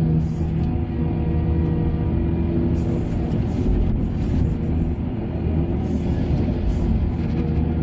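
Heavy mining machinery's diesel engine running steadily at a constant pitch.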